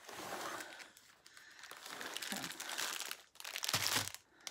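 Plastic packaging crinkling and rustling as a plastic-wrapped rolled diamond-painting canvas and kit contents are handled and pulled from a cardboard box, with a louder burst of rustling near the end.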